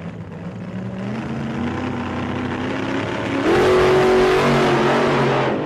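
A vehicle engine revving up, its pitch climbing steadily, then getting louder about three and a half seconds in as it pulls harder.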